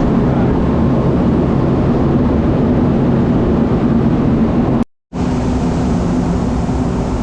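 Heavy farm machinery running steadily, a loud drone with a low hum. It cuts to silence for a moment about five seconds in, then carries on unchanged.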